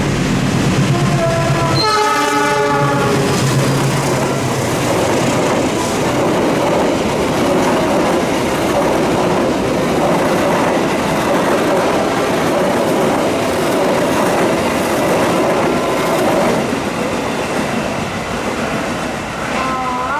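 A passing passenger train. Its horn sounds once for about a second and a half as it nears, then the carriages roll by with steady wheel noise for about twelve seconds before it eases off.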